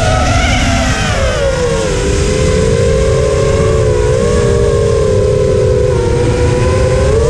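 FPV racing drone's electric motors and propellers whining in flight, several close tones at once, heard from on board. The pitch starts high and eases down over the first two seconds as the throttle comes off, holds with small wavers, then climbs again near the end. Under the whine runs a steady rush of wind noise.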